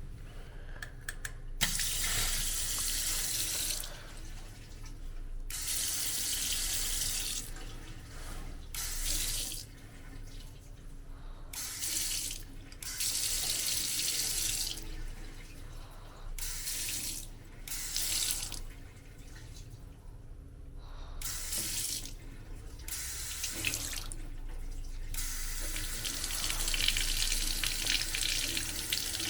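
Water from a Xiaoda sensor-activated tap attachment running into a sink in repeated spells, switching on and off abruptly, some spells brief and some lasting a few seconds, with a longer run near the end. The sudden starts and stops are the infrared sensor turning the flow on and off.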